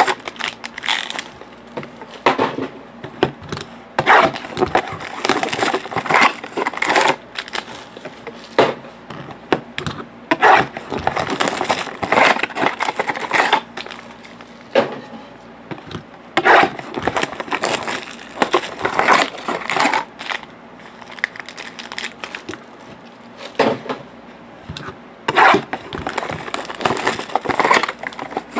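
Irregular crinkling and rustling of plastic shrink wrap and foil-wrapped trading card packs being handled, pulled from their boxes and stacked, with light knocks as packs are set down on the table.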